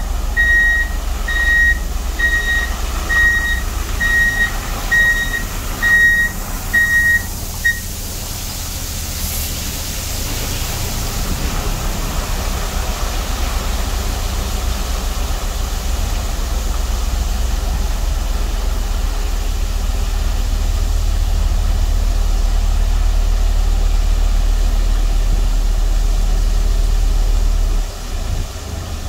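Water-sprinkler tanker truck: its reversing beeper sounds about three times every two seconds and stops about 8 seconds in, over the steady rumble of its engine and the hiss of water spraying from its rear spray bar onto gravel. The rumble and hiss grow slowly louder, then drop off near the end.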